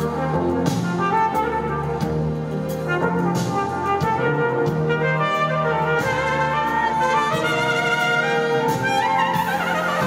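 Live trumpet solo over a full orchestra and band with drums, recorded from the audience; the music climbs in a rising run near the end.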